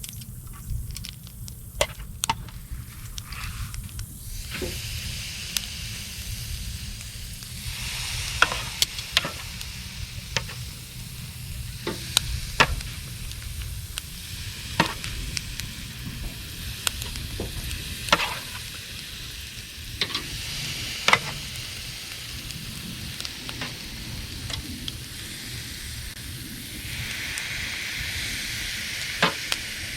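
Chicken drumsticks and wings sizzling as they cook over a campfire grill, a steady hiss that swells about seven seconds in, with sharp clicks every second or two.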